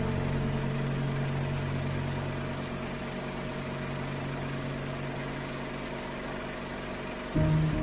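Diesel railcar engine idling with a steady low hum that slowly grows a little quieter; near the end a louder sound cuts in suddenly.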